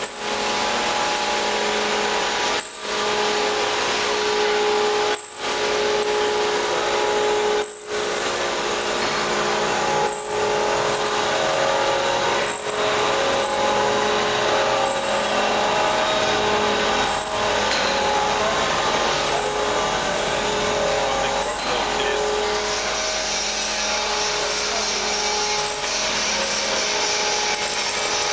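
Hyundai KV2000 vertical machining centre milling metal: the spindle and cutter run steadily, giving a whine of several steady pitches over a rushing cutting noise. In the first half the sound dips briefly every two to three seconds.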